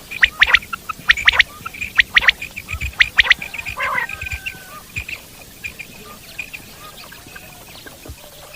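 Common quail calling: loud, sharp phrases of two or three quick notes, the 'wet-my-lips' song, repeated about once a second, then fainter calls from about four seconds in.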